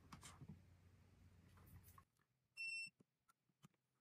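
Digital multimeter's continuity beeper sounding one short, high beep about two and a half seconds in, as its probes are put across the angle grinder's carbon brushes. Otherwise near silence, with a few faint clicks of the probes being handled.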